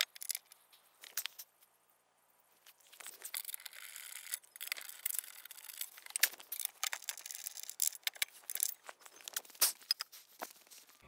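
Metal hand tools and bolts clicking, clinking and scraping: a few sharp clicks in the first second, then a busy run of rattling clicks from about three seconds in until near the end.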